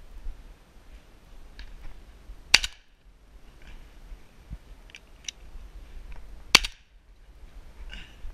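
Two shotgun shots about four seconds apart, each a sharp, loud crack, with several fainter sharp pops in between.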